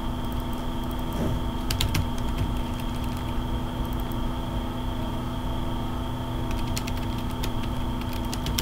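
Computer keyboard keystrokes: a couple of clicks about two seconds in, then a run of typing near the end, over a steady background hum.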